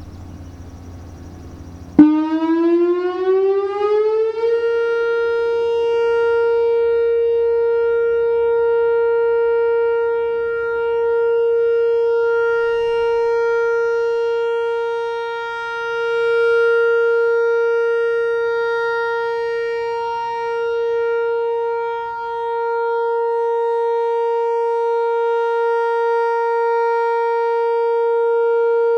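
Whelen WPS-4004 electronic outdoor warning siren sounding its test tone. About two seconds in it starts suddenly, its pitch rising for a couple of seconds, then holds one steady tone that slowly swells and fades in loudness.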